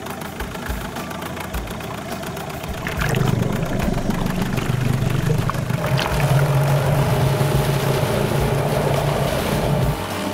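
Yamaha 15 hp outboard motor running in a water tank, driving a 3D-printed wooden propeller. It runs steadily at first, then about three seconds in the throttle opens and it runs hard, the propeller churning the water. It eases back slightly near the end.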